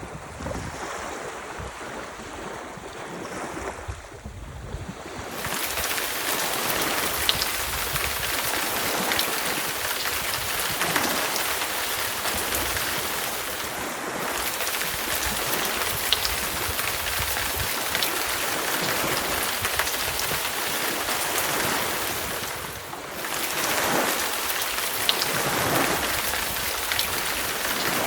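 Wind and ocean surf at first. About five seconds in, the sound switches suddenly to steady, heavy rain, a dense hiss with scattered drop ticks.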